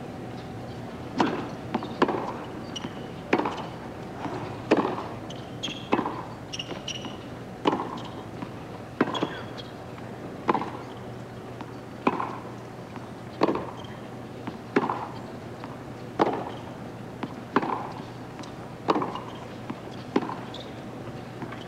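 Tennis ball hit back and forth in a long baseline rally on a hard court: a sharp racket strike about every second and a half, starting about a second in, with the softer thud of the ball bouncing between strikes.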